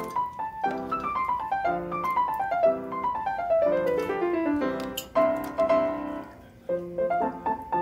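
Background piano music: a light piano piece with a long falling run of notes starting about a second in.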